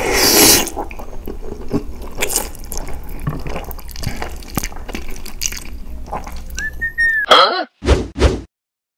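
Close-miked slurping and chewing of spaghetti bolognese, with noodles sucked in through the lips in a run of wet, noisy sucks, loudest at the start. Near the end there is a short whistling glide, then a few brief cartoon sound effects.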